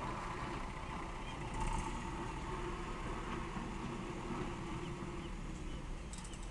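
Steady low outdoor rumble, with a few faint short high peeps from ducklings feeding on the grass.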